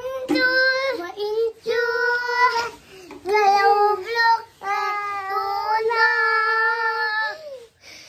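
A young child singing unaccompanied, holding long high notes in a string of short phrases with brief breaks between them.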